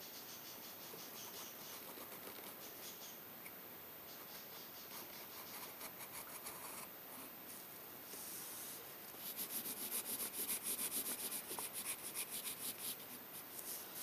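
Graphite pencil drawing on paper: light scratching strokes, then from about nine seconds in a louder run of fast back-and-forth scratches as a small area is shaded in.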